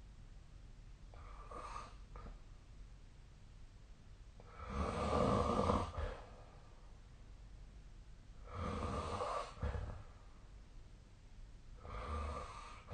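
A sleeping person snoring: four snores about every three and a half seconds, the one about five seconds in the loudest and the first one faint and short.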